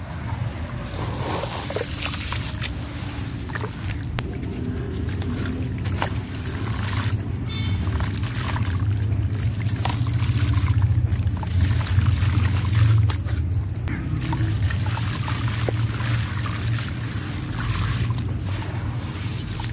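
Hands sloshing and squeezing wet sand-cement chunks in a basin of muddy water, with splashing, trickling and gritty crumbs crumbling and dropping into the water. A steady low rumble runs underneath and is heaviest about halfway through.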